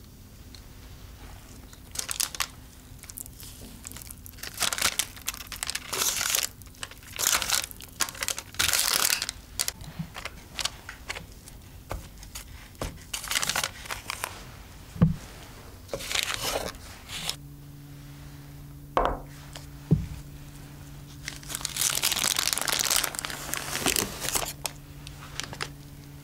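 Silicone spatula spreading thick chocolate batter in a parchment-lined square metal baking pan: irregular scraping and parchment paper crinkling, with a few sharp taps. About two-thirds of the way through a steady low hum comes in, with a long stretch of loud paper crinkling near the end.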